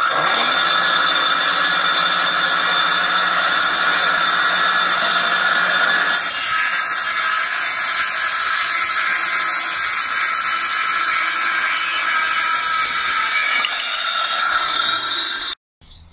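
Einhell TE-CS 18/165-1 Li cordless circular saw running and cutting through a board. The sound is steady and loud, changes in tone about six seconds in and again near the end of the cut, then cuts off suddenly.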